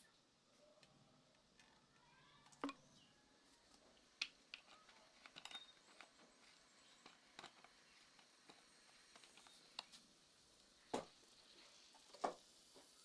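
Near silence in a small kitchen, broken by a few scattered light knocks and clicks of items being handled.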